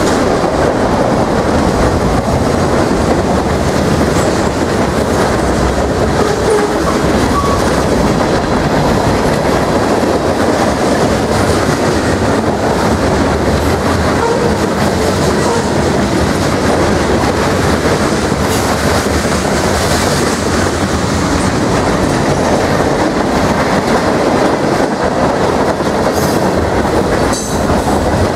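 Freight cars of a CSX manifest train rolling past close by: a loud, steady rumble and clatter of steel wheels on the rails.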